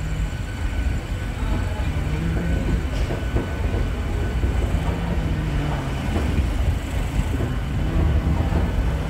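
Electric local train running, heard from its open doorway: a steady low rumble of wheels on the track, with a faint low hum that comes and goes.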